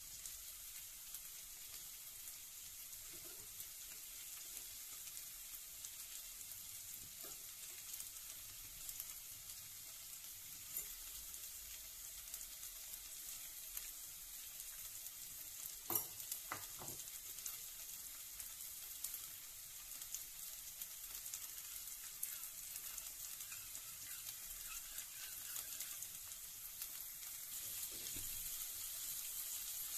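Onions, chillies and curry leaves frying in oil in a stainless steel kadai: a steady, faint sizzle. A couple of sharp clinks come about halfway through, and the sizzle gets a little louder near the end.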